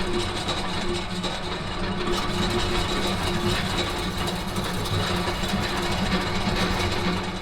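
An industrial gearbox running steadily: a constant mechanical hum with a steady high whine above it.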